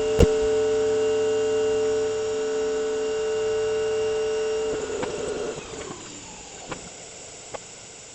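A steady electrical hum of several fixed pitches, with a sharp click just after the start. A little past halfway the hum breaks up, slides down and fades, leaving a faint hiss with two soft clicks.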